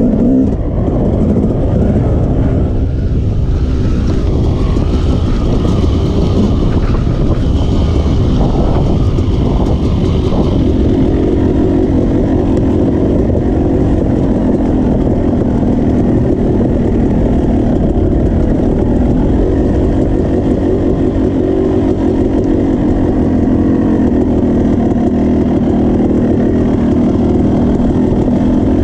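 Yamaha YZ250 two-stroke dirt bike engine running under load off-road. The revs shift up and down through the first ten seconds or so, then the note holds fairly steady.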